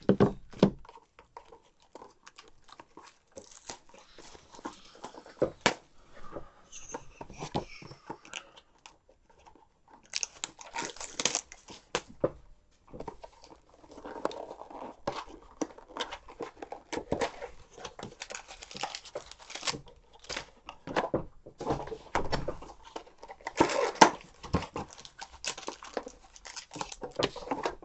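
Baseball card pack wrappers being torn open and crinkled by hand, with the cards inside rustled and handled: an irregular run of crackles and rustles that pauses briefly twice.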